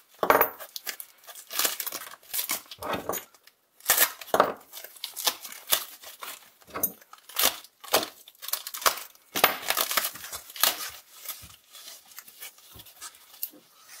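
White plastic packing wrap being cut open and unfolded by hand, crinkling and rustling unevenly throughout.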